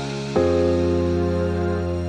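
Background instrumental music of slow held notes, moving to a new note about a third of a second in.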